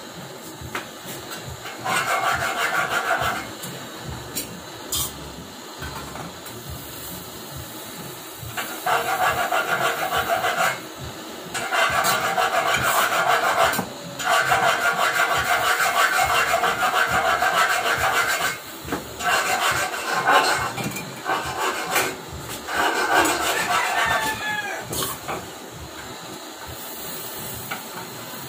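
Steady hiss of a lit hand-held gas torch flame. Over it come repeated rasping, scraping stretches of one to four seconds each, the loudest a long run in the middle.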